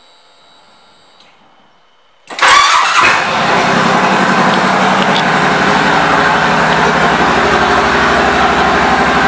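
2008 Suzuki Boulevard C90T's 1,462 cc V-twin, fitted with an aftermarket exhaust, starting up about two seconds in, then running at a steady idle with an even pulse.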